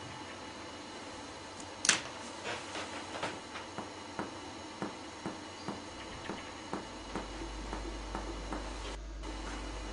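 Finger-on-finger percussion: a doctor tapping a pleximeter finger laid on a patient's back above the spine of the shoulder blade, in short, even knocks about three a second, the first the loudest. The finger is being moved upward to find the height of the lung apex from behind.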